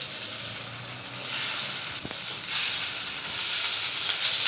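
Chicken mince rolls sizzling as they shallow-fry in a little oil in a pan, the sizzle growing louder from about halfway, with a metal spatula scraping and turning them in the pan.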